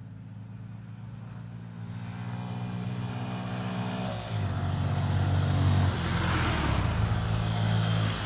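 Dual-sport motorcycle engine approaching and getting steadily louder as it comes round a bend, its pitch shifting up and down a few times in the second half as the rider works the throttle.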